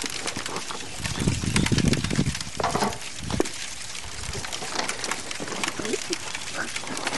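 Scuffling and rustling of two people wrestling on grass strewn with dry leaves and of their clothing. A louder low rumble starts about a second in and lasts about a second.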